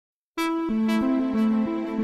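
Background music starts about a third of a second in: a keyboard melody of short, evenly paced notes, about three a second.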